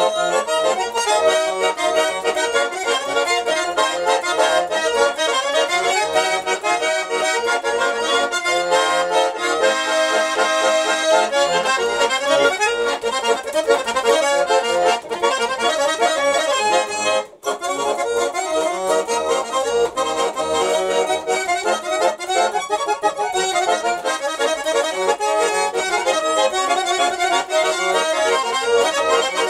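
Garmon (Russian button accordion) playing a traditional-style tune, with a brief break in the sound about seventeen seconds in.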